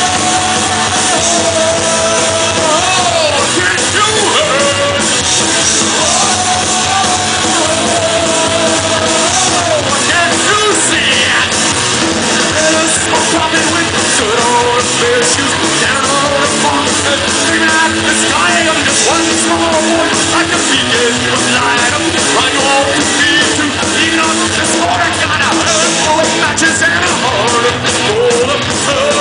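Punk rock band playing live and loud: electric guitar and drums with a sung, partly shouted vocal.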